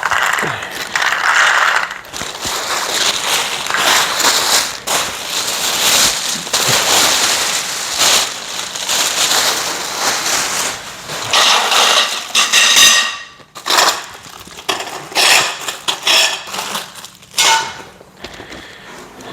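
Plastic parts bags crinkling and rustling while greenhouse connector pieces are handled, with many small clicks and clatters of the hard plastic fittings; it becomes choppier and more broken up about two-thirds of the way in.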